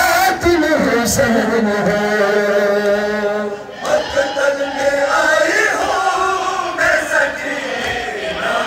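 Male voices chanting a noha, a Shia lament for Imam Husayn, sung in long, wavering held notes.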